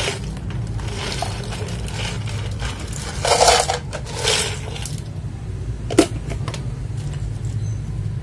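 Loose plastic mechanical keyboard switches being handled in a pile, clattering and clicking against each other, with two short rattling bursts a few seconds in and one sharp click about six seconds in.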